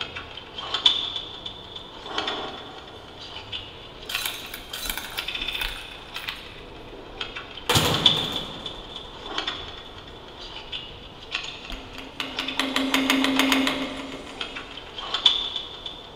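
Electronic sound design built from metallic clinks and clatter, with a recurring high ringing tone. There is a sudden heavy hit about halfway, and a dense metallic rattle over a low hum about three-quarters of the way through.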